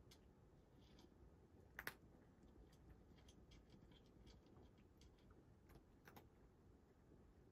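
Cat crunching dry kibble: faint, irregular crunches and clicks, with a louder double click about two seconds in.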